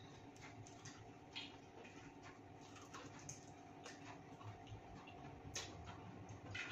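Faint, scattered clicks and soft chewing of people eating at a table, over a low steady hum.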